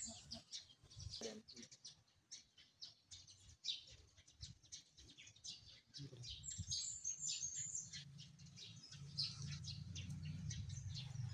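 Small birds chirping faintly and repeatedly, short high chirps throughout. A steady low hum comes in about halfway through and continues beneath them.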